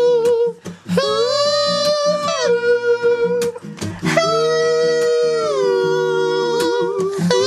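Music: a wordless melody of long held notes that slide down in pitch, over a plucked guitar accompaniment.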